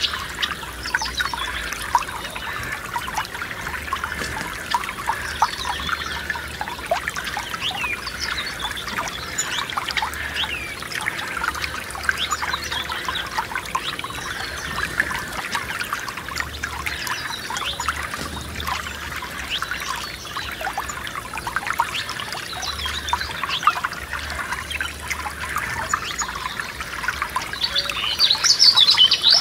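A small forest stream trickling and babbling over stones, with birds chirping now and then and a brief burst of louder birdsong near the end.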